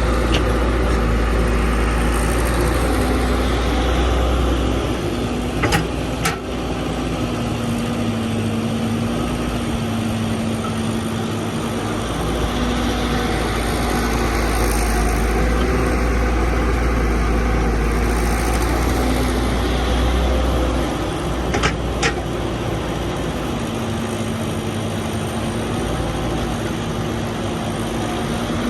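Excavator's diesel engine running steadily, its low rumble swelling and easing as the machine works through its digging cycle. A few sharp clanks come through it, two close together about six seconds in and one more about three-quarters of the way through.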